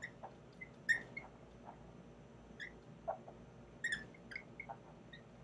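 Dry-erase marker squeaking against a whiteboard while writing: a string of short, high squeaks and chirps, the sharpest about a second in.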